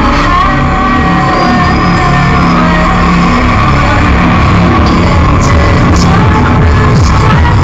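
Loud hard techno played over a festival sound system: held synth tones over a dense bass line, with sharp beat hits coming through from a little over halfway.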